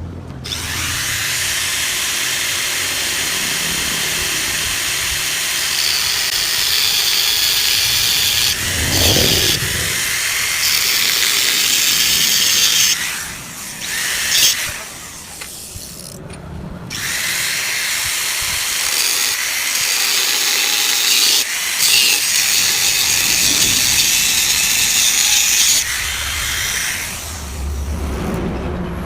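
Angle grinder cutting into the steel shell of a Yamaha RX-King exhaust muffler to open it up, a high hissing grind. It runs for about twelve seconds, stops for a few seconds, then runs again for about nine seconds before stopping near the end.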